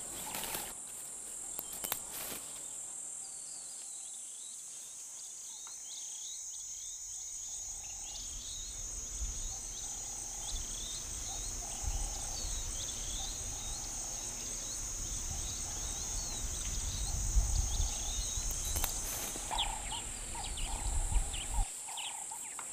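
Bush ambience: insects drone steadily at a high pitch while birds give many short chirps. Two sharp cracks come in the first couple of seconds, and a low rumble builds through the middle and stops shortly before the end.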